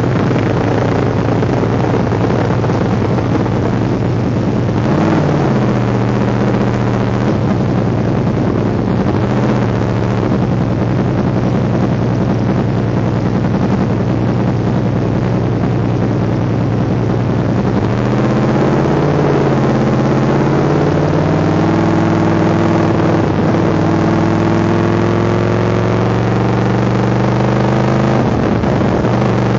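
Sport motorcycle engine running at low revs, heard onboard, with a couple of short rev blips early on. Over the last ten seconds the bike pulls away, its engine note rising steadily as it rolls out of the pit lane.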